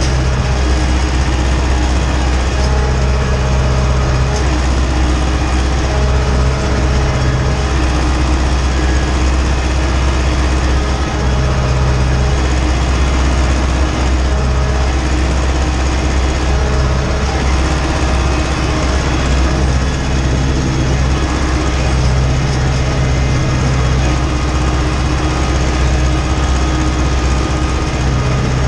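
Ursus tractor engine running steadily under load, heard from inside the cab, as the tractor pulls a cultivator across a field. The low engine hum holds an even pitch and level.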